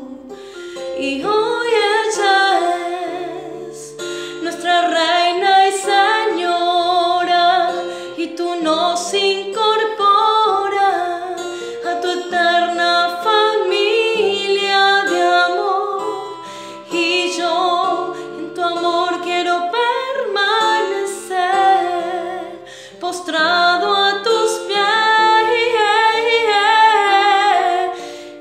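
A woman singing a slow Spanish-language devotional song solo, her voice wavering with vibrato on long held notes, over a light instrumental accompaniment with sustained low notes.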